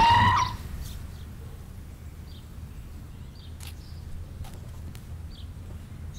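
A car horn sounds in one steady honk that cuts off about half a second in. After it come a low steady hum and faint, scattered bird chirps.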